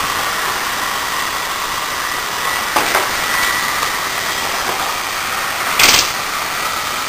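Server blower fan wired straight to a PC power supply's 12 V through a 4-pin Molex, so it runs at full speed: a steady, really loud rush of air with a thin high whine. A short, louder rustle comes about six seconds in.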